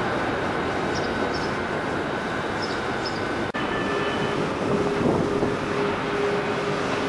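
Railway station ambience under a train shed: a steady noise with standing VR electric trains humming. About halfway through, the sound drops out for an instant and the hum comes back at a lower, steady pitch.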